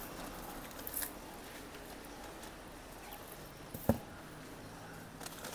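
Faint background with light rustling and scattered soft clicks, and one sharp knock a little before four seconds in.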